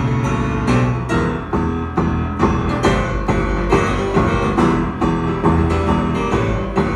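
Live piano playing an instrumental passage of rhythmic struck chords, with no singing.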